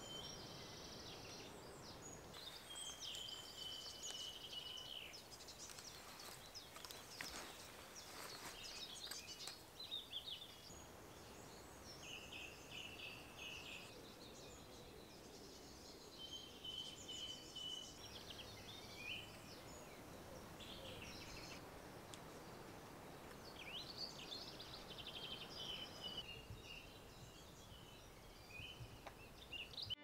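Faint woodland birdsong: several small birds singing short phrases and trills every few seconds over a soft, steady background hiss, with a few faint clicks about a quarter of the way in.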